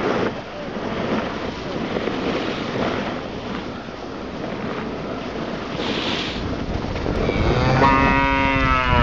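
Steady rushing of wind on the microphone, then a cow moos once, a single long call that starts about seven seconds in and is the loudest sound.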